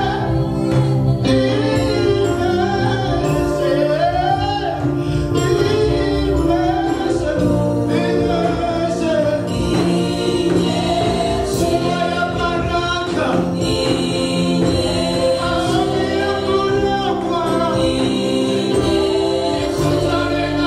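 Live gospel worship song: a man leads the singing on a microphone, with backing singers joining in, over steady held instrumental accompaniment.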